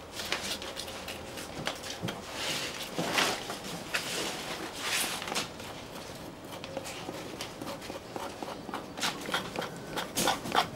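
A knife scraping flesh off a shark fin on a wooden cutting board: irregular scrapes, clicks and taps, with a few longer scraping strokes.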